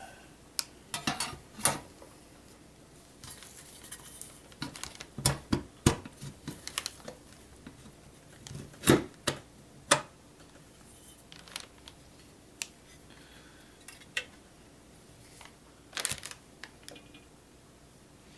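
Irregular clicks, taps and knocks of computer hardware and cables being handled inside a desktop case, with two louder knocks near the middle.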